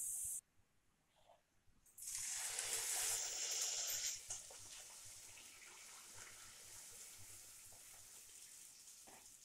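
Bhatura dough deep-frying in hot oil in a kadhai: a sizzling, bubbling hiss starts sharply about two seconds in and is strongest for a couple of seconds. It then settles into a steady, fainter sizzle.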